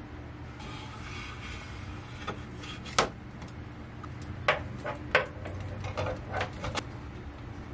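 Unpacking an IKEA LAMPAN plastic table lamp: plastic wrap rustling and crinkling, and the lamp's plastic parts knocking as they are handled, the sharpest knock about three seconds in and several more later on.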